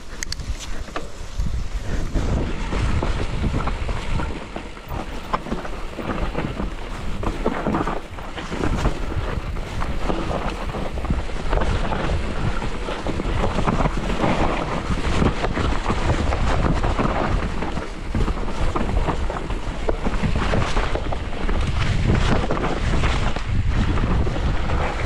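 Mountain bike ridden over a rain-soaked dirt trail: wind buffets the microphone with a steady low rumble. Tyre noise on wet ground runs under frequent knocks and rattles from the bike going over bumps.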